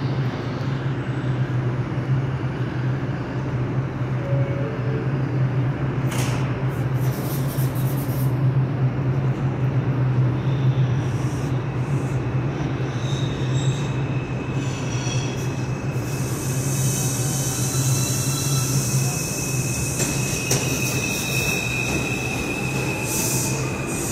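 R142 subway train standing at the platform with a steady low hum. About sixteen seconds in it pulls out, and a high whine and hiss with wheel squeal come in.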